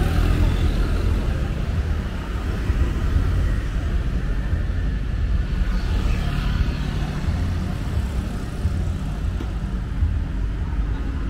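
Busy street traffic: a steady low rumble of engines, with a vehicle passing a little past halfway.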